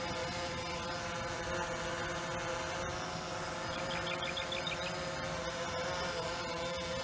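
DJI Phantom 3 Standard quadcopter hovering overhead, its four propellers giving a steady, high-pitched hum made of several layered tones.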